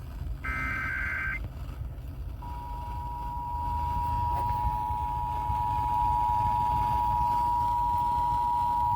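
Emergency Alert System broadcast from a radio: a SAME header data burst, a buzzing electronic screech about a second long, then, a little over two seconds in, the two-tone EAS attention signal starts and holds steady. A low steady rumble runs underneath.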